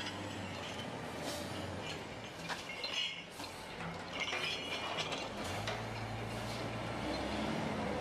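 Engine of an old crawler-mounted cable logging yarder running, easing off about two seconds in and picking up again past the middle, with scattered metal clinks and knocks.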